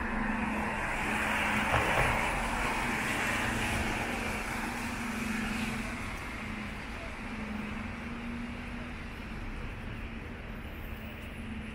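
Road traffic passing on a wet city street. The tyre noise swells to a peak about two seconds in and then slowly fades, over a steady low engine hum.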